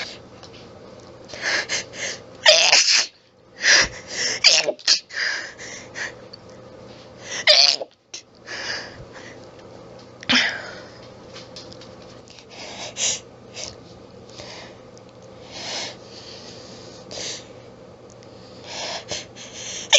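A person's sneezing fit: a run of harsh, throaty sneezes with quick hitching breaths between them, brought on by a persistent nasal tickle. The loudest sneezes come in the first half, with softer bursts later on.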